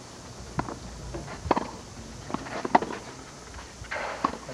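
Tennis ball being hit with rackets and bouncing on a clay court during a rally: a series of sharp knocks spaced about a second apart, the loudest about a second and a half in and again near three seconds in.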